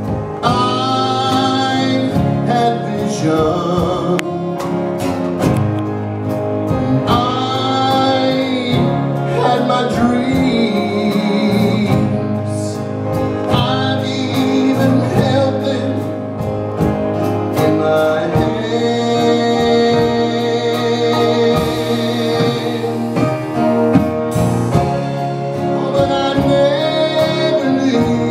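Gospel vocal group singing with acoustic guitar and instrumental accompaniment.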